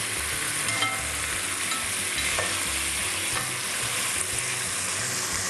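Chicken pieces sizzling steadily as they sear in a hot pot, with a few light clicks of metal tongs turning them. The chicken is being seared only to seal the surface before it is boiled, not to brown it.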